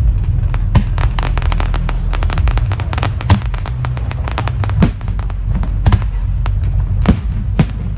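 Aerial fireworks going off: a rapid run of crackling pops, then several louder single bangs spaced about a second apart, over a steady low rumble.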